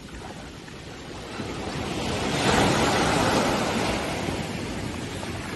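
Ocean surf: a wave builds and breaks about two seconds in, its rush loudest for a second or two before fading back to the steady wash of the sea.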